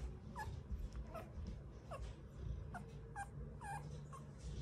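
Rottweiler puppy, about eleven days old, giving a string of about seven short, high squeaks and whimpers while nursing.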